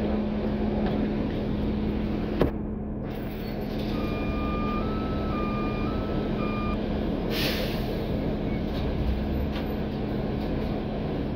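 Interior sound of a NABI 416 transit bus underway: steady engine and road drone with a low hum, and a sharp click a little past two seconds in. In the middle, an electronic beeping alternates between two close tones for about three seconds, then a short hiss of released air follows.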